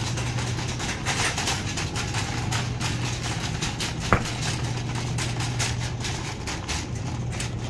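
Metal shopping cart rolling over a tiled floor, its wheels and wire basket rattling continuously, over a steady low hum. One sharp click about four seconds in.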